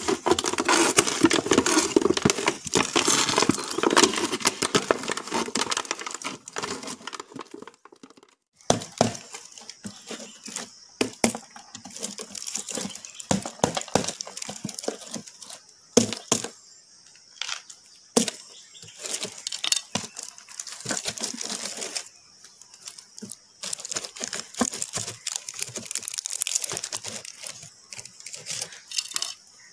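Dried cement crackling and cracking as a homemade cement flowerpot is worked free of its mould, with a plastic bottle crinkling as it is twisted out. A dense run of crackling for the first several seconds gives way to scattered sharp cracks and knocks.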